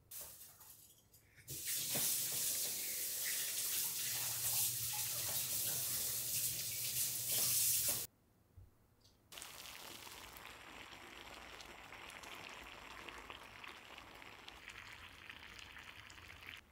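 Tap water running hard into a kitchen sink for about six seconds, then stopping abruptly. After a short pause, water boiling in a stainless steel saucepan, a softer steady bubbling hiss with fine crackles.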